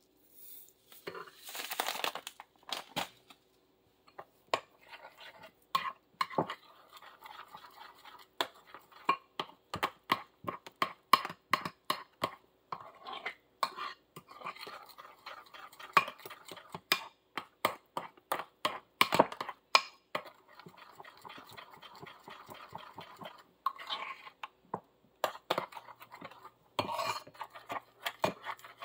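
A metal spoon stirring chia seeds into pancake batter in a glass bowl: many quick, irregular clinks and scrapes of the spoon against the glass. In the first few seconds, the seed bag rustles as seeds are poured in.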